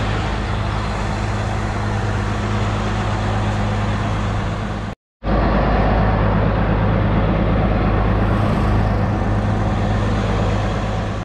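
International 4300 truck's diesel engine running steadily as the truck rolls along, with tyre and wind noise on an outside-mounted camera. The sound drops out for a moment about five seconds in, then resumes a little louder.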